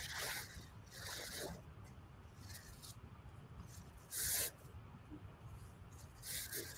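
Four short, soft hissing rustles picked up by a video-call microphone over faint room noise. The loudest comes about four seconds in.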